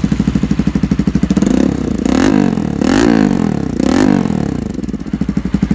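Kawasaki Rouser RS200's single-cylinder engine running through an SC Project slip-on exhaust: idling with even pulses, then revved three times, each rev rising and falling, before it settles back to idle near the end.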